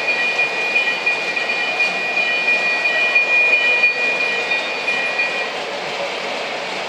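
O-gauge model diesel freight train running on a layout: a steady rumble of the locomotive's sound system and wheels on three-rail track. A steady high tone runs over it and stops about five and a half seconds in.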